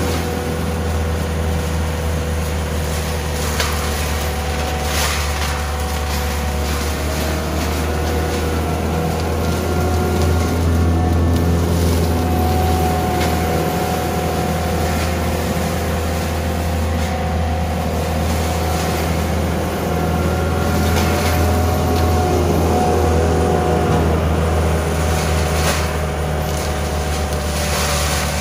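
CAT 299D3 compact track loader's diesel engine running steadily under load, driving its Cimaf forestry mulcher head, with a whine that drifts up and down in pitch. Brush and saplings are being shredded, heard as several short crackling bursts.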